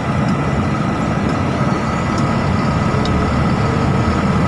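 Tractor-trailer truck engine and road noise while driving: a steady low rumble with a thin, steady whine above it.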